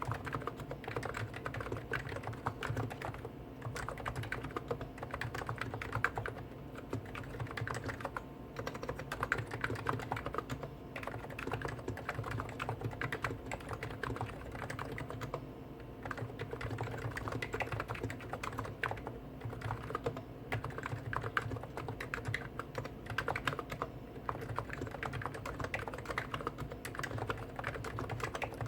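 Continuous, rapid typing on two Hansung Gtune electro-capacitive keyboards at once, a CHF4 Snow White with 50 g switches and a CHF7 OfficeMaster with 55 g switches. The keystrokes overlap into a dense patter with no real pauses.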